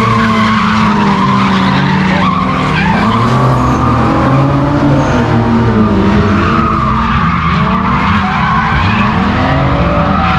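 Several cars drifting in tandem: loud engines revving up and down over one another, with continuous tyre squeal from the sliding tyres.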